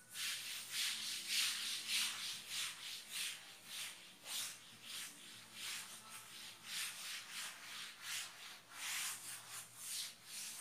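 Chalkboard duster wiping a chalkboard clean in quick back-and-forth strokes: a dry rubbing hiss pulsing about two to three times a second.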